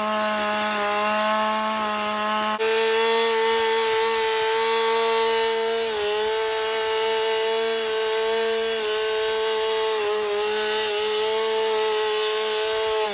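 Chainsaw cutting into a wooden log while carving, running near full throttle with a steady high whine that shifts slightly in pitch a few times as the chain's load changes.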